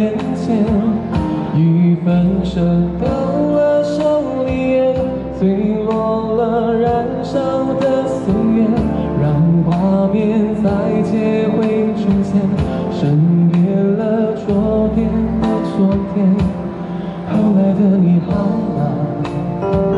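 Live amplified performance of a slow Mandarin pop ballad: a man sings the melody over an electronic keyboard accompaniment with a steady beat, played through a street PA speaker.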